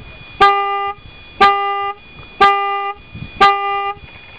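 Electronic countdown beeper of a remote firing system: four loud, buzzy, pitched beeps, one a second and each about half a second long. They count down the last seconds before the flash-powder charge fires on zero.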